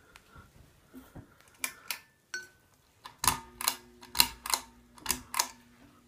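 A Hunter Colonial ceiling fan starting up: a few sharp clicks, then about three seconds in a steady low motor hum comes on together with a quick run of loud clicks about three a second.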